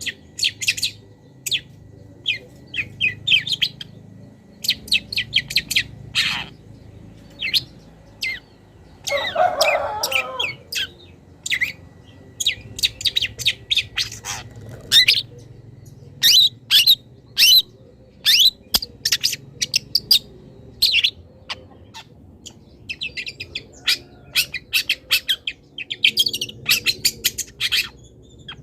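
Long-tailed shrike (cendet) singing in quick runs of short chirps, trills and whistles, its song full of imitated calls of other wild birds. About nine seconds in comes a lower, harsher call lasting about a second.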